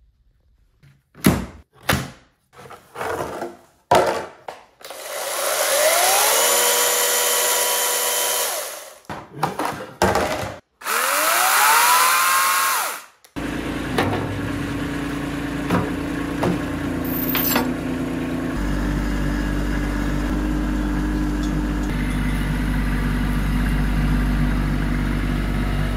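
A few sharp clicks and knocks, then two revs of a 40-volt battery chainsaw, each time the motor whining up in pitch to a steady high run before cutting off. After that, a compact tractor's engine runs steadily, its note changing a little partway through.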